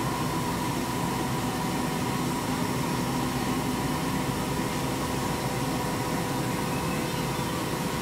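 Machining centre running steadily with coolant flowing, a continuous hum with a steady whine, while an abrasive hone finishes a rifle barrel's chamber.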